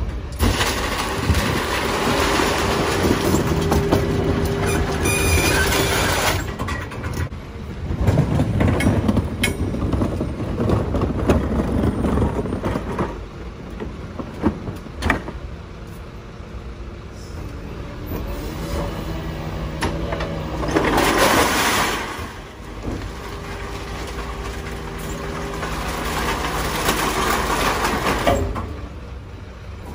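Rear-loading garbage truck emptying a large recycling bin of bottles and cans. The engine revs up to drive the bin lifter's hydraulics, then glass and cans rattle and clatter into the hopper. About 21 seconds in there is a loud rush of noise, and the engine revs again as the lifter and packer cycle.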